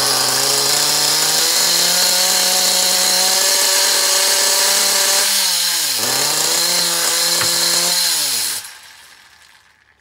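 Small nitro glow engine of a Kyosho RC car running on the bench, its pitch dipping and recovering about five and a half seconds in, then falling away as it stops near the end. It is running after its seized carburettor was freed and loose cylinder-head bolts, which had been leaking fuel mist, were tightened.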